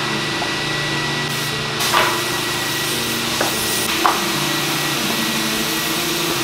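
Steady mechanical whooshing noise of workshop machinery. Over it come a few short wooden knocks, about two and four seconds in, as oak boards are set down and shifted on a workbench.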